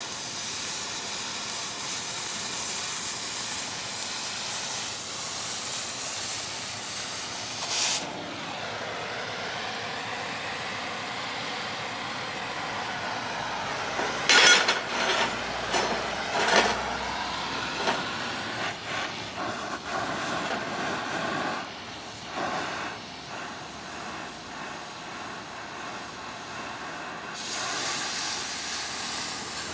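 Oxy-fuel cutting torch hissing steadily as it cuts through steel plate. There are a few louder sharp bursts around the middle.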